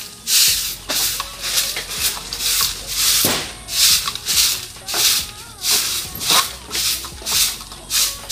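Short bristle broom sweeping a bare dirt yard strewn with gravel and leaves: quick, scratchy swishing strokes, about two a second.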